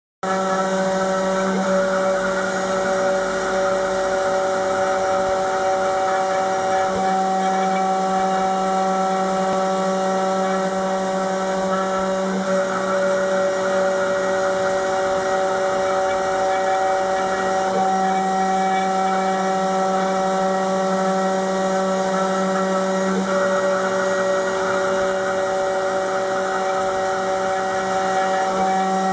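Desktop CNC engraver with a 775 DC spindle motor milling a wooden block: a steady machine hum and whine of several even tones, changing only slightly as the cut goes on.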